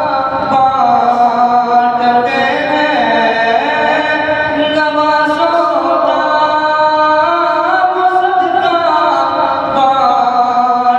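A young man's solo voice singing a naat, an Urdu devotional poem, into a microphone, in long held notes that glide up and down.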